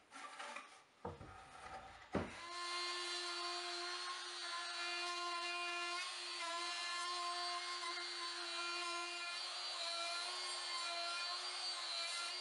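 A sharp knock about two seconds in, then a DeWalt compact trim router with a surfacing bit running steadily as it is pushed across a walnut slab on a router sled to flatten it, with an even, high motor whine.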